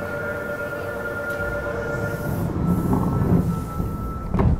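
Fukuoka City Subway Series 2000 car with Hitachi GTO-VVVF traction, heard from inside while running, with steady high whine tones over the running noise. A low rumble builds up midway, and a sharp loud thump comes near the end.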